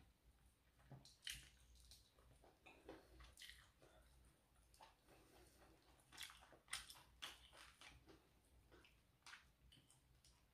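Faint, irregular wet chewing and lip smacks of a person eating honey-roast duck, with the tearing of meat from the bone by hand.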